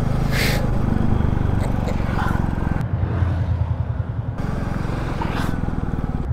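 Royal Enfield Classic 350's single-cylinder engine running steadily while the bike is ridden, its low, even beat heard under wind noise on the microphone. The sound changes abruptly twice, about three seconds in and again a second and a half later.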